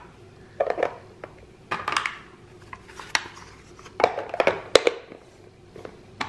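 Hard plastic bento lunch box being packed and shut: small containers clacking into place, then the lid closing and its latch snapping shut, heard as a series of separate clicks and knocks.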